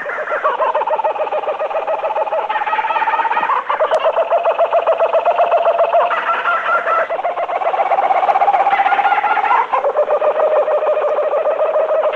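Cartoon animal chattering sound effect: a fast, buzzy stream of pitched chatter that starts abruptly and jumps to a new pitch a couple of times.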